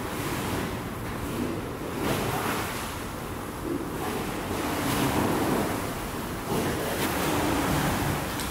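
Rushing wind and sea noise on a ship's deck, swelling and easing every second or two.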